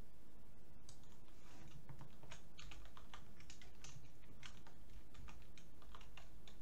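Typing on a computer keyboard: a run of irregular key clicks that starts about a second in.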